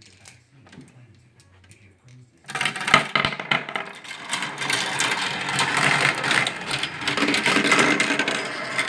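Marbles rolling and clattering through a toy marble run: a few faint clicks, then about two and a half seconds in a sudden loud, dense rattle of many marbles that keeps going.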